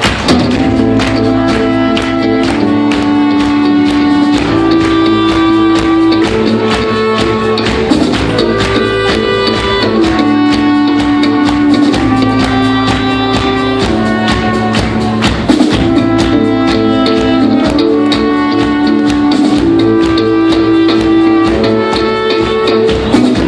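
Live band playing an instrumental passage with no singing: held melody notes and chords changing every second or two over a fast, steady strummed rhythm.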